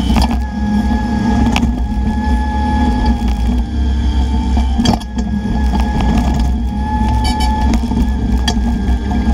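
Bobcat E10 mini excavator's diesel engine running under load with a steady whine, and a few sharp knocks scattered through.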